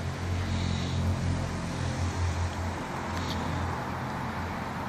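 A low, steady engine hum over a background hiss, dying away about four seconds in.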